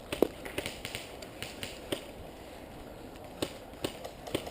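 Scattered faint, sharp clicks and snaps, about ten at irregular intervals over a low hiss.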